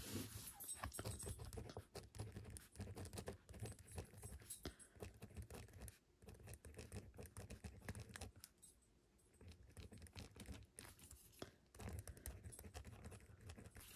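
Faint scratching and light tapping of a Kaco Green biodegradable gel pen writing on a dot-grid sticky note pad, in short irregular strokes, with a brief pause a little past halfway.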